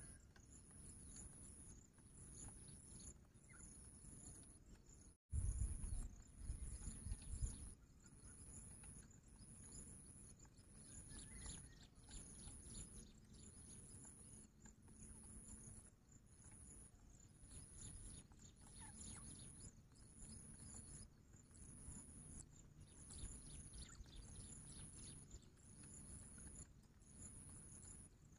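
Faint outdoor ambience: a high-pitched insect buzz pulsing steadily about once a second. About five seconds in, a low rumble lasts for a couple of seconds.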